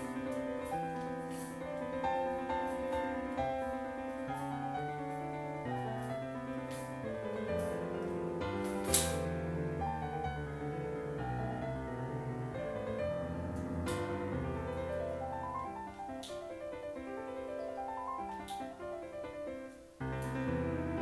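Background piano music with rising and falling runs of notes. A few sharp clicks sound over it, the loudest about nine seconds in.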